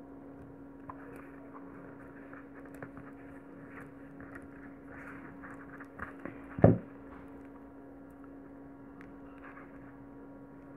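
Faint rustles and light clicks of hands working pearl beads and nylon thread, over a steady low hum. A single sharp thump about six and a half seconds in.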